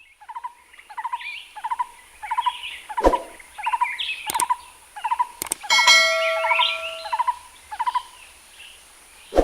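A bird calling over and over, a short rising note about twice a second. A few sharp clicks and a brief held chime sound through it.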